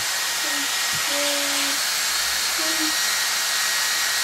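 The bubble robot's small electric motor and fan running in a test, a loud, steady whirring hiss.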